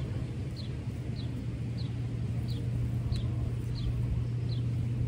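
A steady low mechanical hum with a rumble under it, of the kind a running vehicle engine makes, and a short high falling chirp repeated evenly about every two-thirds of a second.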